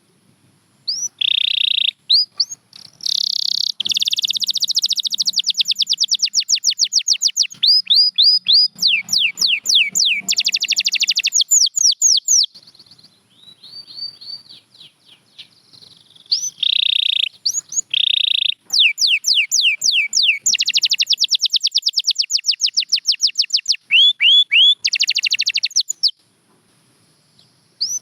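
Domestic canary singing: long phrases of rapid trills and quick repeated falling notes, pausing for a few seconds midway before starting a second phrase.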